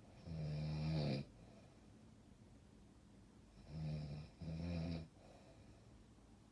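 Snoring: three pitched, buzzing snores, one lasting about a second near the start, then two in quick succession about four seconds in.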